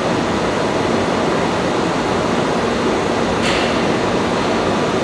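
Steady running noise of a 683-series limited express electric train moving off along the platform, with a short hiss about three and a half seconds in.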